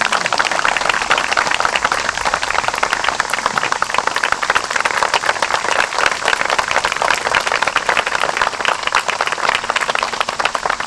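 Audience applauding: dense, steady clapping from a crowd of a few dozen people.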